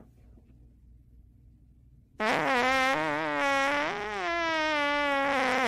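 Long, loud cartoon fart sound effect that starts suddenly about two seconds in, pitched and wavering up and down, with a brief dip near four seconds.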